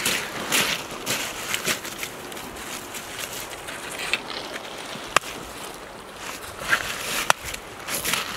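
Rubber-booted footsteps crunching on river gravel for the first couple of seconds, then two sharp clicks about two seconds apart.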